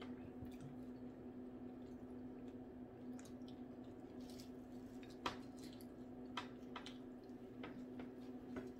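Faint mouth sounds of someone eating fried fish and french fries with her fingers: soft wet smacks and chewing, with scattered small clicks of food and fingers against a plate and a sharp click about five seconds in. A steady low hum lies underneath.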